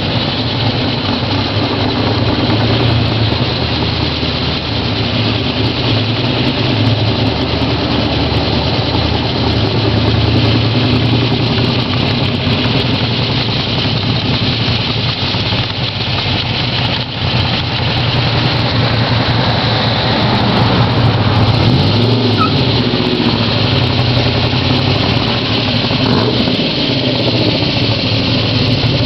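Corvette SR-2-style roadster's engine running as the car drives, a steady low engine note. About two-thirds of the way in, the pitch rises and falls a few times as the throttle changes.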